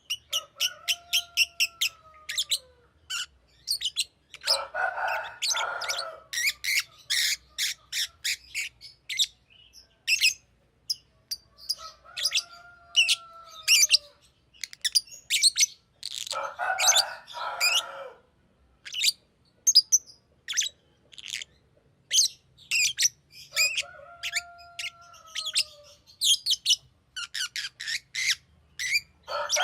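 Green lovebird chirping: a quick, busy run of sharp high chirps, broken three times by a falling whistled call and a short harsh chattering burst.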